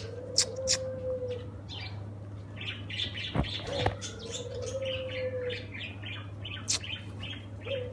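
Birds chirping in many short, rapid chirps, with a drawn-out low note that comes back about every four seconds, over a steady low hum.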